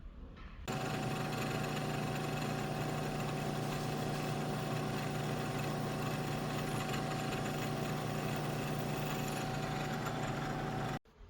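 Milling machine running steadily, a constant motor hum with a few held tones over an even machine noise. It starts abruptly just under a second in and cuts off abruptly near the end.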